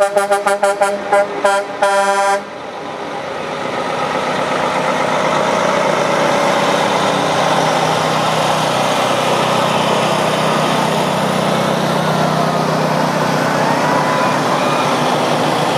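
A truck horn tooted in a rapid string of short blasts for about the first two seconds, the last blast a little longer. Then heavy truck engines run as the trucks pass, a steady rumble that builds over a couple of seconds and holds.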